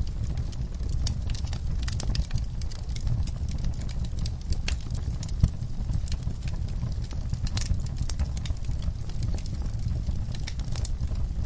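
Wood fire burning in an outdoor firepit, crackling with frequent irregular sharp pops over a steady low rumble.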